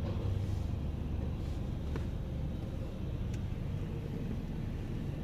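Steady low rumble of a Dodge Grand Caravan idling, heard from inside the cabin, with a couple of faint ticks.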